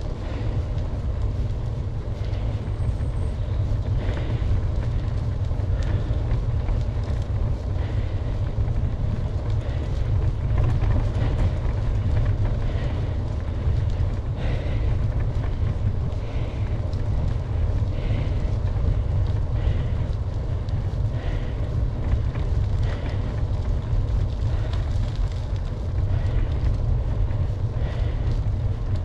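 Steady low rumble of wind buffeting the microphone on a moving bicycle, with road noise underneath.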